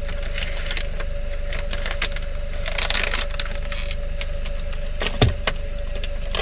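Plastic cheese-slice packet crinkling and rustling as slices are peeled off, densest about three seconds in, over a steady low hum. A single sharp knock about five seconds in.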